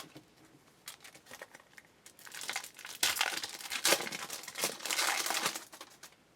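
A foil trading-card pack wrapper being torn open and crinkled, with a few light clicks first and then a few seconds of crackling as the wrapper is pulled apart and crumpled.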